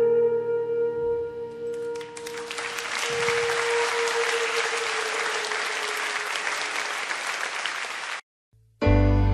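A song ends on a long held note and gives way to applause lasting about six seconds, which cuts off abruptly; after a brief silence a new song begins with a deep bass note near the end.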